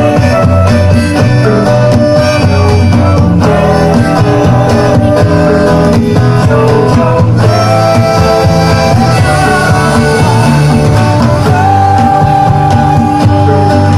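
Live band music: a sung melody with long held notes over guitar and a steady bass line.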